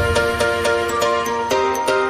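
Background music with a quick, steady beat and held notes.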